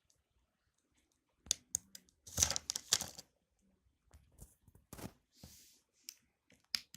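Handling noises at a workbench: a series of sharp clicks and short rustles, the loudest a scraping rustle about two and a half seconds in. No power-supply whine is heard.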